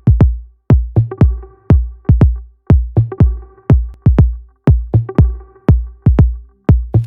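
Electronic background music with a heavy, punchy kick-drum beat and a few sustained synth notes.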